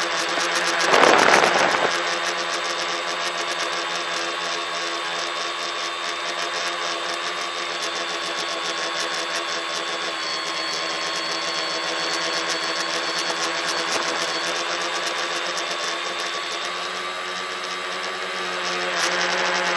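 Tricopter's electric motors and propellers buzzing steadily in flight, heard from a phone carried on the aircraft, with a brief rush of noise about a second in.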